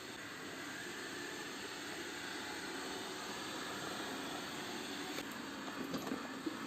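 Polaris PVCR 3200 IQ Home Aqua robot vacuum cleaner running with a steady whirring hiss, with a few light clicks in the last two seconds.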